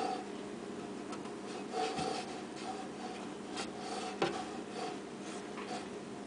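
Handling noise: faint rubbing and light clicks as a hand moves close to the microphone, with a sharper knock about four seconds in, over a steady low hum.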